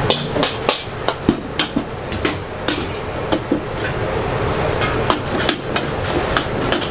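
Metal spatula striking and scraping a steel wok during a pad thai stir-fry, with irregular clanks about two or three a second over a steady hiss of frying.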